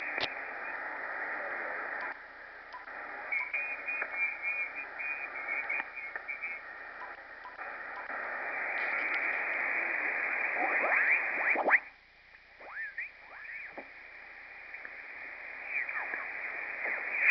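Band hiss and faint garbled signals from an Icom IC-7300 receiving upper sideband on the 20-metre band. The hiss drops about two seconds in and comes back up from about eight seconds, as the preamplifier is switched from setting 2 to 1 and back. Later the dial is tuned across stations, giving quick rising and falling whistling chirps of off-tune sideband voices.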